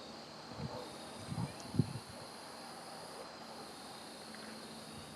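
Evening insects calling steadily, with a very high buzz that comes in long stretches of two to three seconds. A few low thumps sound in the first two seconds.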